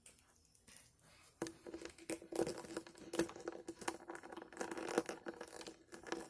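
Handling noise from a plastic action figure being posed: a run of clicks and rustles starting about a second and a half in, over a steady low hum.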